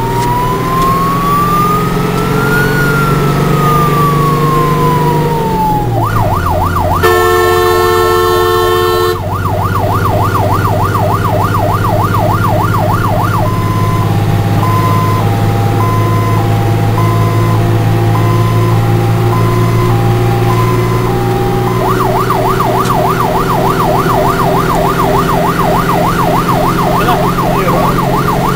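Fire engine's siren running through its modes: a slow rising and falling wail, then a fast yelp, a loud horn blast of about two seconds, more yelp, a steady high-low two-tone, then yelp again, with the wail starting up once more at the very end. Under it the truck's engine drones steadily, heard from inside the cab.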